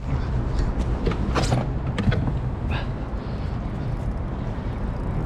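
Steady low rumble on the microphone, with a few sharp knocks and clicks in the first three seconds as a fishing rod with a hooked fish is handled in a plastic kayak.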